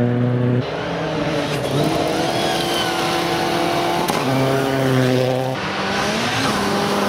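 Rally car engines, one of them a Mitsubishi Lancer Evolution, running hard at high revs on gravel stages, the pitch rising and falling with throttle and gear changes. The sound switches abruptly twice, about half a second in and again after five seconds, as one car's engine gives way to another's.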